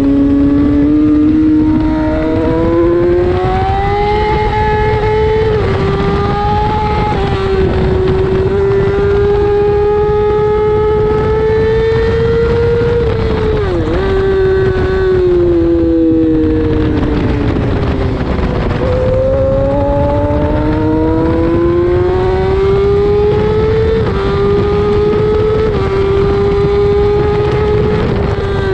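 Race motorcycle engine under hard acceleration, heard on board. Its pitch climbs with a series of quick upshifts, dips briefly about halfway, falls for a few seconds as the bike slows, then climbs again through two more upshifts, over a steady rush of wind.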